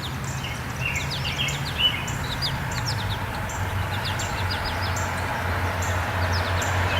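Small birds chirping, many short high calls in quick succession, over a steady low hum and an even background hiss that grows slightly louder.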